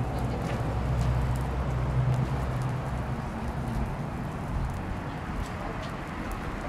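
Street ambience dominated by the low, steady engine hum of a vehicle, strongest in the first half and fading about four and a half seconds in, with faint light ticks over it.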